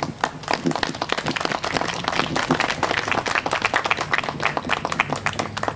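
Audience applauding with hand claps, which stop abruptly near the end.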